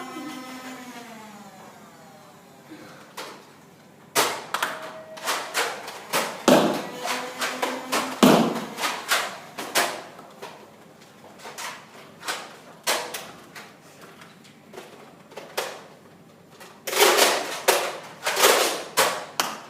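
Toy foam-dart blasters in a Nerf battle: runs of sharp clicks and thuds, starting a few seconds in and growing densest near the end.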